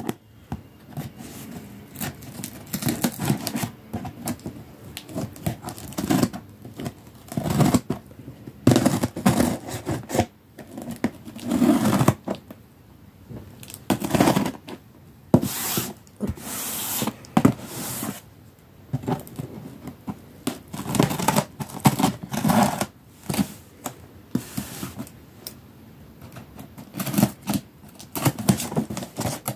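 Scissors cutting along the packing-tape seams of a cardboard box, with tape tearing and cardboard scraping in irregular bursts.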